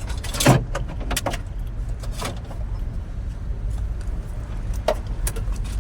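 A few sharp metallic clinks and knocks, the loudest about half a second in, over a steady low rumble.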